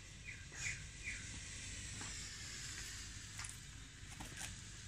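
A white smoke firework tube hissing steadily as it burns and pours out smoke, the hiss swelling about two seconds in. There are a few short high chirps in the first second and some faint ticks.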